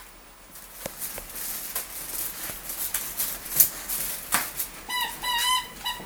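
Dog's squeaky toy squeaking, a quick run of short high squeaks about five seconds in, after several seconds of scattered clicks and rustling.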